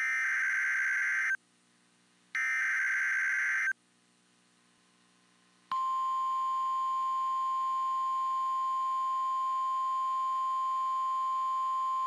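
NOAA Weather Radio emergency alert signalling. First come the last two of three SAME digital header bursts: buzzy data warbles of about a second and a half each, a second apart. About six seconds in, the steady 1050 Hz warning alarm tone starts and holds.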